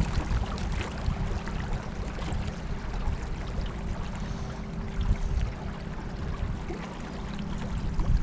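River water sloshing and trickling around a small boat, over a low rumble, with a faint steady hum for a few seconds in the middle.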